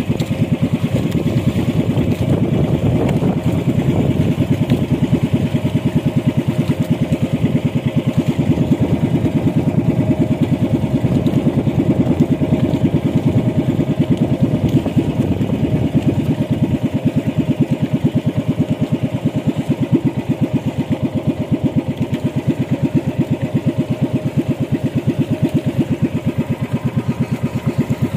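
Small outrigger fishing boat's engine running steadily with rapid, even exhaust beats.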